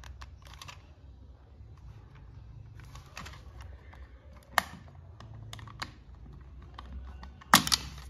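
Plastic clicks and taps as a toy RC car's handheld remote is handled and its battery cover is prised off. A sharp click comes about halfway, and a louder snap near the end as the cover comes free.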